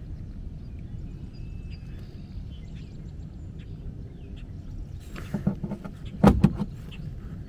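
A cluster of sharp knocks and clatter about five to six and a half seconds in, the loudest near the end, over a steady low rumble.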